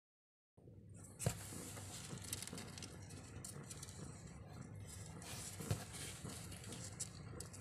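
Newborn kittens shuffling and suckling against their nursing mother in a cardboard box: a steady rustling and scratching starting about half a second in, with two sharp knocks, about a second in and near six seconds.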